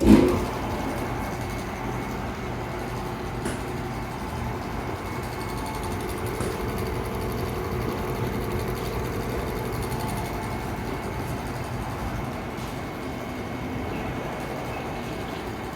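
Amada HFA250 fully automatic band saw starting with a sudden loud burst, then running steadily.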